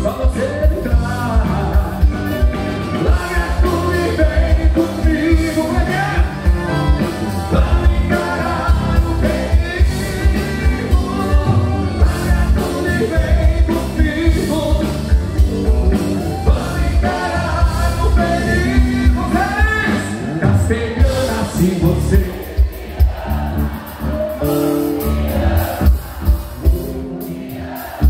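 Live band playing gaúcho music with a singer over a steady drum beat.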